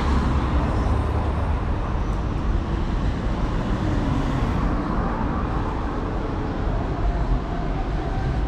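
Road traffic: cars driving by, a steady rumble of engines and tyres.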